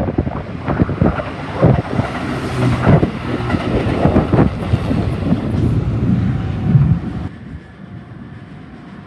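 Sanyo Electric Railway 6000 series electric train passing close by, its wheels clattering over the track in a rapid run of knocks over a low hum. The sound cuts away abruptly about seven seconds in, as the train clears.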